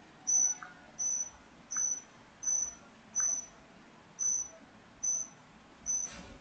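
Cricket chirping: short high chirps at one steady pitch, about eight in six seconds at a fairly even pace. A brief click comes near the end.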